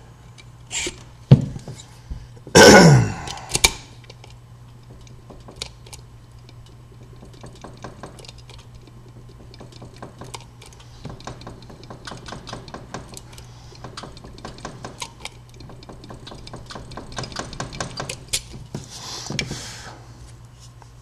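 Metal clicks and clinks of a key blank clamped in vise grips being worked in an old five-wafer Slaymaker padlock during impressioning, the blank wiggled against the wafers to mark it. A loud clank comes about two and a half seconds in, followed by a long run of fine, rapid ticks.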